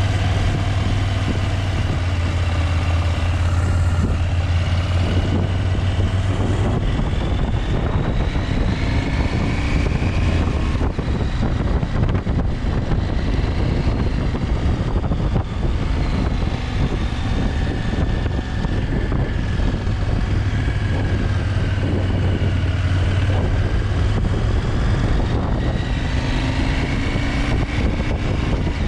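KTM 890 Adventure's parallel-twin engine running on the move, its pitch rising and falling with the throttle, over a steady rushing noise.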